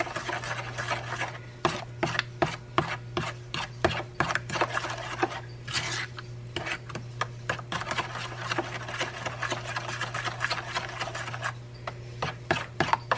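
Metal spoon stirring thick barbecue sauce in a plastic mixing bowl: repeated scraping and clicking strokes against the bowl's sides and bottom, several a second and uneven in rhythm.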